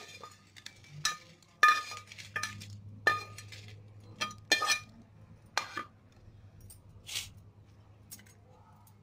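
A metal spatula clinks against a pan and a ridged glass bowl as roasted dried red chillies are scraped and tipped into the bowl. There is a run of sharp, ringing clinks and clatters for about six seconds, then a last one near seven seconds.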